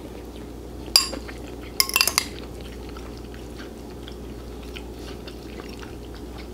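A metal eating utensil clinks against a bowl once about a second in, then several quick clinks just before two seconds as a bite is scooped up, over a steady low hum.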